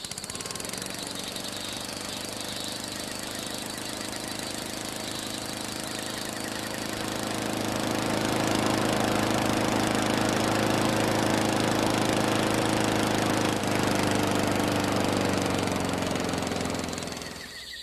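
Close-up gas lawn mower engine running steadily. It grows louder toward the middle, then is shut off near the end, its pitch falling as it winds down.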